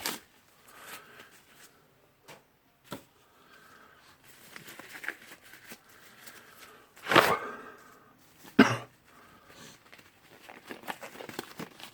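Work gloves being changed, with rustling and crinkling, and scattered handling clicks, the loudest a short rustling burst about seven seconds in and a sharp knock just after.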